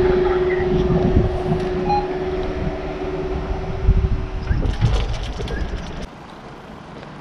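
Level crossing barrier's hydraulic pump whining at a steady pitch as the barrier arm rises, cutting out about four and a half seconds in, followed by a few clunks as the arm settles upright. A low rumble underneath dies away about six seconds in.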